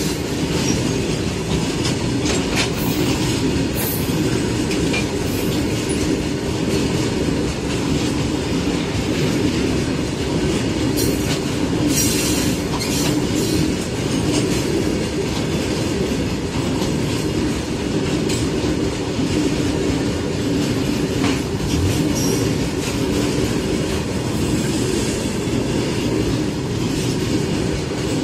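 Freight wagons of a long goods train rolling steadily past at close range. There is a continuous rumble of steel wheels on rail with a steady low hum, and scattered sharp clicks and clanks as the wheels run over the rail joints.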